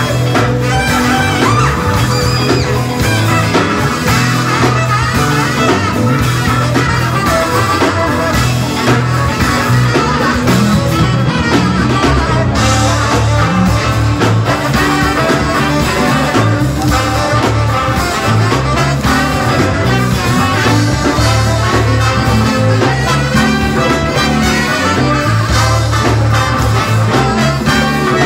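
Live band playing a funk instrumental passage: saxophone and electric guitar over bass, drum kit and congas, with a strong, steady bass line.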